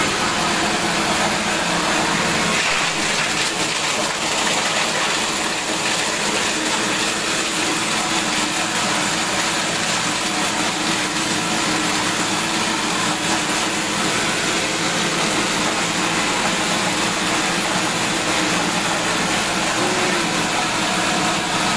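Plastic-waste shredder machine running steadily, an even, unbroken mechanical noise.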